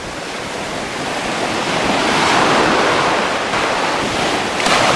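Sea surf washing in over the shallows: a steady rush that swells louder around the middle.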